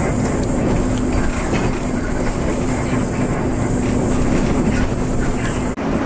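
Coach bus driving along a road, heard from inside the cabin behind the windshield: steady engine hum and road rumble. The sound drops out for a moment near the end.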